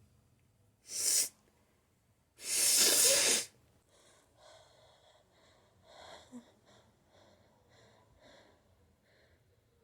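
Two loud bursts of air forced out through a person's nose: a short one about a second in, then a longer one lasting about a second, as in sneezing and nose blowing. Quiet, repeated sniffly breaths follow.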